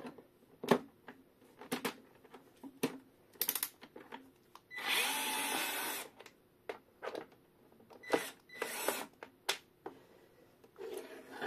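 Worx cordless electric screwdriver running in short bursts as it backs out a long bolt from the top of a portable power station's case. The longest run starts about five seconds in and lasts over a second, with two shorter runs a few seconds later. Small clicks and taps of the tool and bolt fall between the runs.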